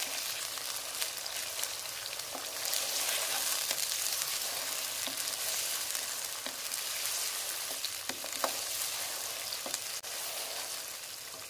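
Mutton pieces and garlic-ginger-green-chilli paste sizzling in hot oil in a pan while being stirred with a wooden spatula. The spatula knocks against the pan now and then.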